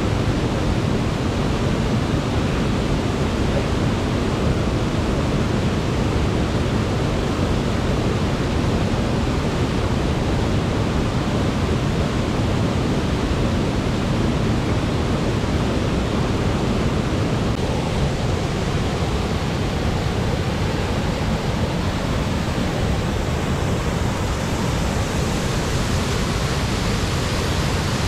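A waterfall's steady, loud rush of falling water, an even, unbroken noise.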